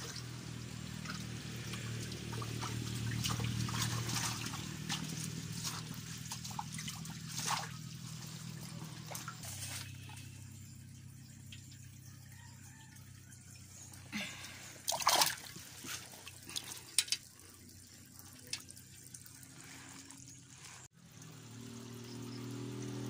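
Water trickling and splashing as tilapia are scooped from a shallow pond with a hand net, with a steady low hum under the first half. A few sharper splashes come about two-thirds of the way in.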